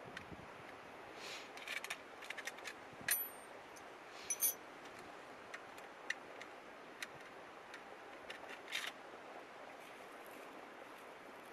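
Steady rush of the river under scattered small clicks and taps, with two bright metallic clinks about three seconds and four and a half seconds in.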